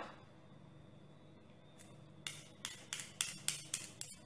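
A small screwdriver's steel tip stroked repeatedly against a magnet, giving sharp metallic clicks about three to four times a second from about halfway in. The stroking magnetizes the tip so it will pick up the phone's tiny screws.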